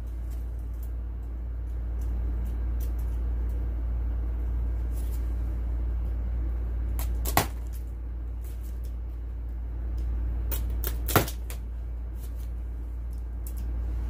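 Plastic packing straps around a cardboard box being cut with a box cutter: two sharp snaps as the straps give, about halfway through and again some four seconds later, with lighter clicks of the blade and strap between, over a steady low hum.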